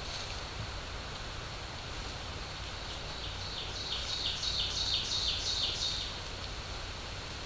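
A songbird singing a run of quickly repeated high two-part notes, about three a second, growing louder over about three seconds and then stopping. The trail camera's steady hiss and low hum run underneath.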